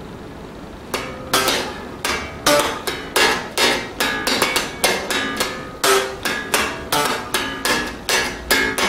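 Five-string electric bass played as a test for fret buzz after a truss-rod adjustment: a ringing note fades out, then from about a second in a steady run of sharply attacked, clanky plucked notes, about three a second.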